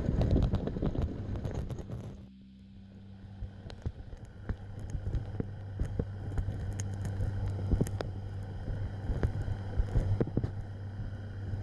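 A boat's motor running at a steady low hum while trolling, with scattered clicks and knocks from the tackle being handled as a fish is reeled in. Louder rustling for about the first two seconds.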